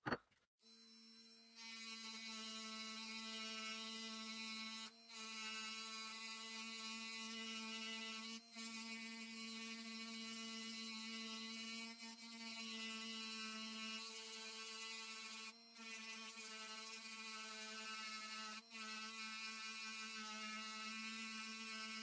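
Small handheld rotary tool running steadily at high speed, its grinding bit working the steel of a hatchet head: a steady whine with a hiss above it. The sound cuts out for a moment about five times.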